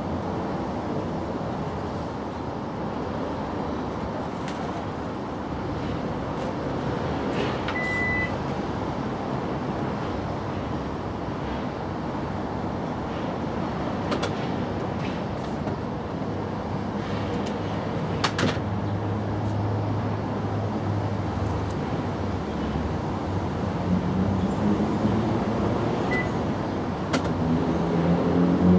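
Steady low rumble of a motor vehicle's engine. Near the end the engine's pitch rises slowly as it speeds up.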